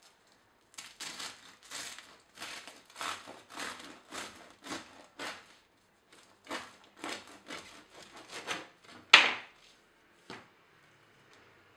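Serrated bread knife sawing through the crisp crust of a sourdough loaf: a run of crunchy rasping strokes about two a second, with a short pause in the middle. There is one louder, sharper stroke near the end and then a last small knock.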